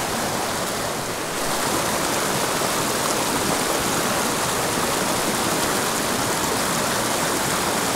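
Small mountain creek rushing over rocks in pocket water, a steady rush that grows a little louder about a second in.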